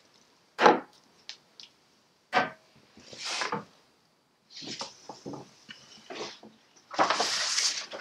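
Paper being handled against a wooden board: a few sharp knocks and taps with papery rustling swishes, the longest and loudest near the end.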